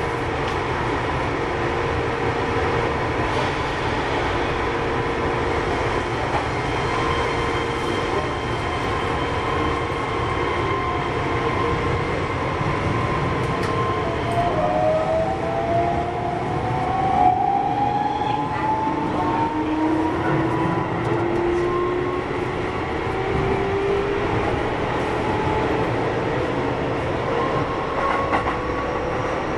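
Keihan 13000 series electric train running, with the whine of its traction motors and inverter over the rumble of the wheels. Partway through, the whine's tones climb steadily in pitch as the train picks up speed.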